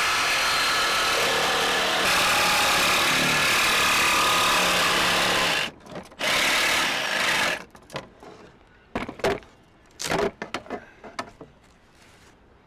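Electric saw cutting a Lexan plastic sheet in a long steady run, with a gummed-up blade. It stops near the middle, cuts again briefly, then gives way to a few knocks and clatter of the pieces being handled.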